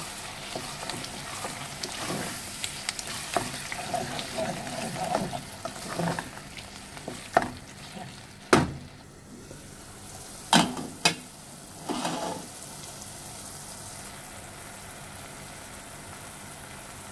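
Brain masala sizzling in a pan while a wooden spatula stirs it, with a handful of sharp knocks of the spatula against the pan around the middle. Then the stirring stops and only the steady sizzle goes on.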